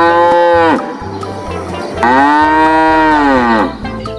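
Cow mooing: the end of one long moo, then a second long moo about two seconds in. Each call bends slightly in pitch and drops away at its end.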